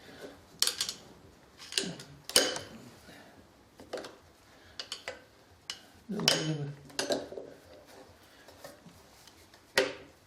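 Gears in the 6T10 milling machine's head being shifted by hand into engagement: irregular metallic clicks and clunks, about seven in all, as the freshly fitted gear train is worked.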